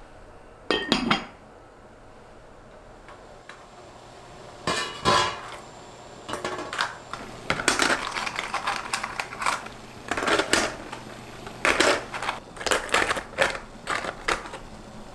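Clinking and knocking of scallop shells and stainless steel cookware, as shells clack against each other and a steel steamer pot. The sharp clinks come singly at first, then in a dense, irregular run through the second half.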